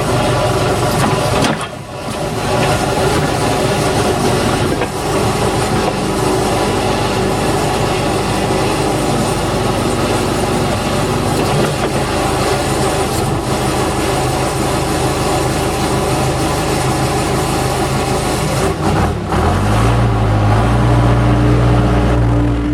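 Case 580 backhoe engine running steadily under load while it is used to break tire beads, then revving higher near the end.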